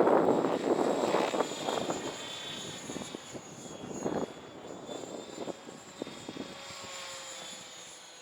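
Align T-Rex 700E electric RC helicopter in flight, its 700MX motor and rotors giving a high whine that wavers a little in pitch. A loud rushing noise at the start dies away, and the whole sound grows steadily fainter.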